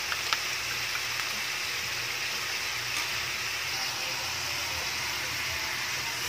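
Purple yard-long beans frying in a hot wok, giving a steady sizzling hiss. A couple of light clicks come just after the start.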